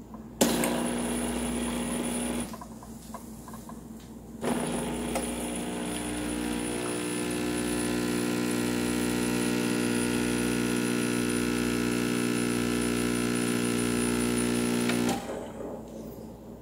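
Oster PrimaLatte II espresso machine's pump buzzing as it brews an espresso shot. It runs in a short burst of about two seconds, pauses for about two seconds, then runs steadily for about ten seconds and cuts off.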